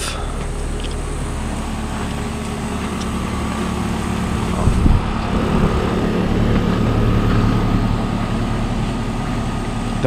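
Carrier Comfort heat pump outdoor unit running in heat mode, just after starting up: a steady low hum with the rush of its fan. A soft low thump about halfway through.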